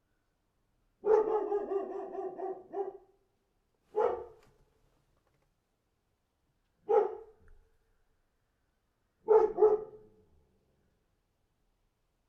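A dog barking: a quick run of barks about a second in, then single barks with long gaps, and two barks in quick succession near the end.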